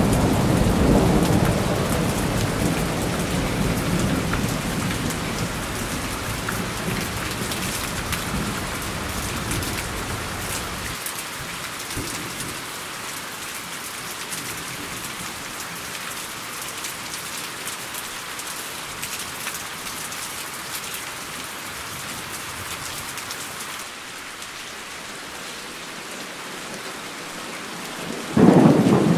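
Heavy rain falling steadily. A thunder rumble at the start fades and then cuts off abruptly about eleven seconds in, and a sudden loud thunderclap breaks near the end.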